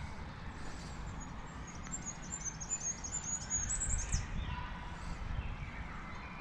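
A bird giving a quick run of short, high chirps for about two seconds, over a steady low background rumble.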